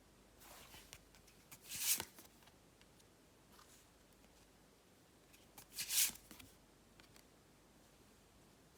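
Tarot cards being handled: two brief papery sliding rustles, about two seconds in and again about six seconds in.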